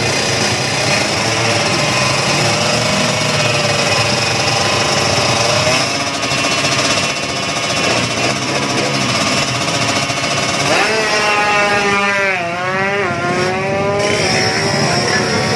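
Drag-racing motorcycle engine running hard at high revs on the start line, then launching down the strip about eleven seconds in, its pitch climbing and dropping sharply several times as it shifts through the gears.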